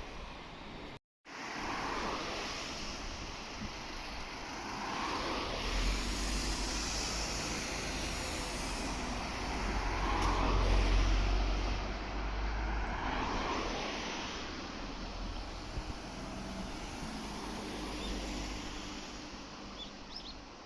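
A vehicle passing by outdoors: a deep rumble builds, peaks around the middle and fades away.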